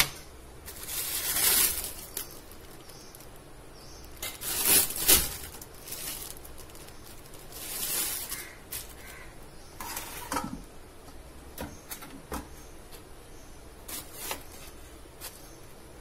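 A plastic bag crinkling and rustling as it is peeled off frozen liver, in several separate bursts. Later come a few short clicks and knocks of steel kitchenware.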